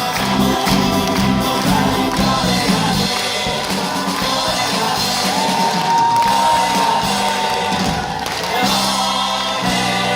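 Live stage-musical song: singers with a band, one voice holding a long steady note midway through.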